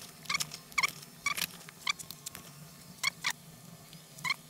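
Rice bran scooped from a paper sack with a plastic bowl and tipped into a plastic bucket, scoop after scoop: a string of short scrapes and squeaks, one or two roughly every second.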